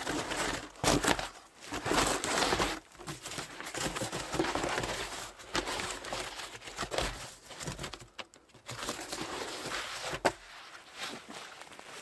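Ridged foam sleeping mat crinkling and scraping against the dry, splintered wood inside a hollow log as it is unfolded and pushed in, in irregular bursts of rustling. A single sharp snap stands out about ten seconds in.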